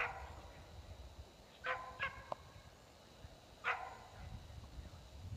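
A dog barking: four short, high barks, the middle two close together about two seconds in.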